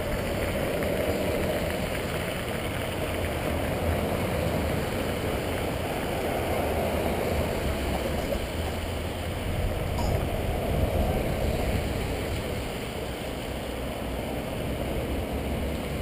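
Steady rumble of vehicles driving slowly past in a procession, engine and tyre noise without sirens, swelling slightly a little past the middle.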